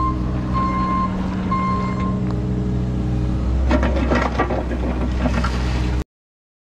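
Cat 303E mini excavator's diesel engine running, its travel alarm beeping about once a second for the first couple of seconds. About four seconds in, the bucket grinds and rattles through the gravel as it scrapes the path, and the engine works harder under the load. The sound cuts off abruptly about six seconds in.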